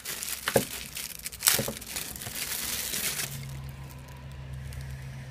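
Clear plastic wrapping crinkling and rustling in irregular spurts as hands pull it off a power adapter and cable. A low steady hum comes in about three seconds in.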